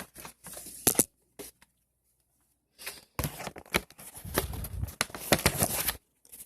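Rustling and handling noise, likely from paper being handled, with sharp clicks about a second in. After a short silence comes a denser stretch of crackling and knocks.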